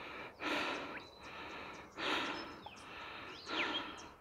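A person breathing hard while walking uphill, three loud breaths about a second and a half apart, close to the phone's microphone.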